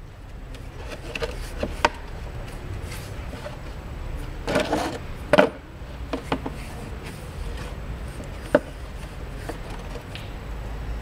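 Scattered light clicks and scrapes of an automatic transmission clutch friction disc being lifted and handled in a plastic tub of red transmission fluid. A louder scraping rustle comes about halfway through.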